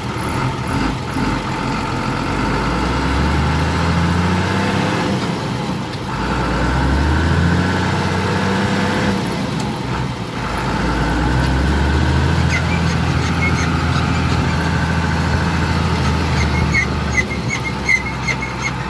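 New Holland TM140 tractor's diesel engine running while driving, heard from the driver's seat, its revs climbing and easing off several times, with a drop about ten seconds in and again near the end.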